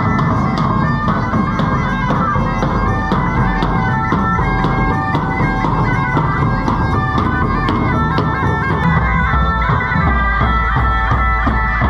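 Bagpipes playing a folk marching tune over their steady drone, with marching bass drums keeping a regular beat.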